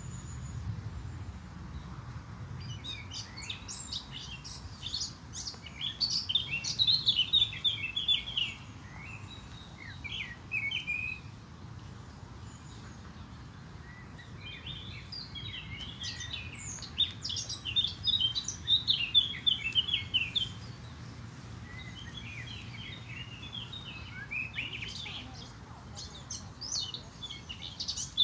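Small songbirds chirping and trilling in quick, dense bouts, three of them with short lulls between, over a low steady rumble.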